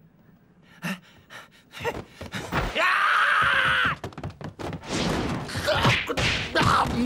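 Film fight-scene sound effects: a single blow about a second in, then a run of punches and thuds with grunts and a long cry held for about a second.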